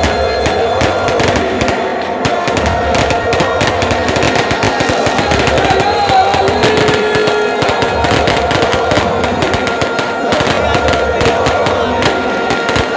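Aerial fireworks crackling and popping in a dense, continuous stream of rapid reports, mixed with music carrying held melodic tones.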